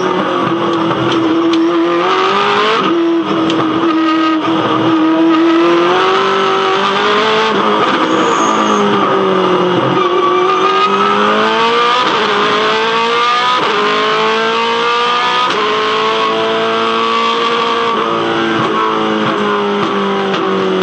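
V8 Supercar race car's V8 engine at racing speed, revving up through the gears. Its pitch climbs and drops sharply at each upshift several times, with one longer fall around the middle as it slows and comes back on the throttle.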